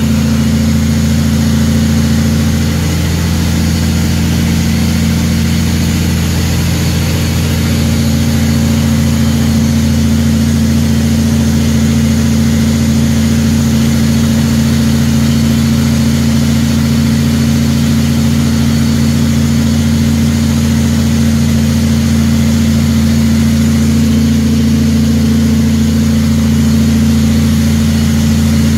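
Heavy truck's diesel engine running steadily under way, heard from inside the cab over road noise, a little louder from about eight seconds in.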